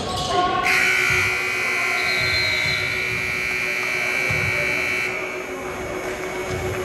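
Gym scoreboard buzzer sounding one long steady electronic tone for about four seconds, starting just under a second in.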